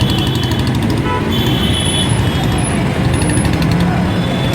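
Dense, jammed road traffic: many vehicle engines running together in a steady rumble, with several short, high horn beeps over it.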